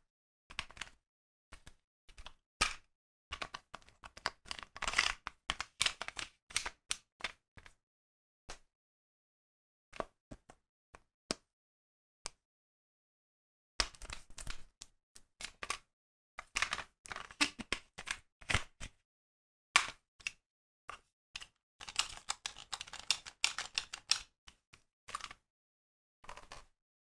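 Hard plastic parts of a DX Genesis Driver toy belt being handled and fitted together: irregular clicks, taps and knocks of the faceplate and strap pieces, in two busy spells with a sparse lull in the middle.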